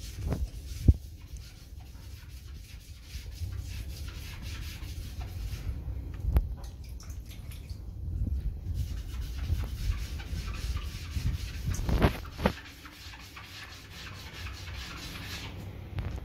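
Damp sponge rubbing back and forth over wall tiles and grout joints, wiping the dried tile grout smooth, with a few short knocks along the way.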